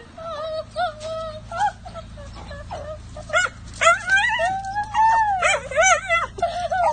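A dachshund giving excited high-pitched yips, whines and barks in greeting. A few short calls come early, then they come thicker and louder from about three seconds in, with one longer drawn-out whine in the middle.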